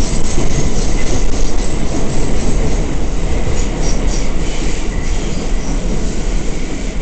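Interior ride noise of an R179 subway car in motion: a loud, steady rumble of wheels on rail, with brief faint wheel squeals now and then.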